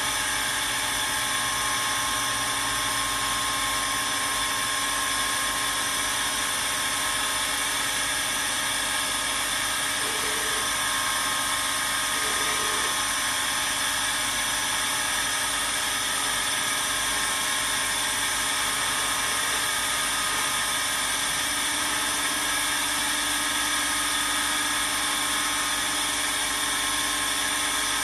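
Rollomatic CNC 148 P4 grinding machine running: a steady mechanical hum with a high whine made of several fixed tones, level and unchanging.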